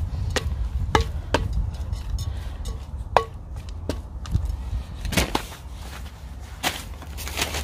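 A plastic hand scoop mixing potting soil in a terracotta pot: several short knocks and scrapes as it digs in and strikes the soil and pot, then a few longer rustling sounds in the second half.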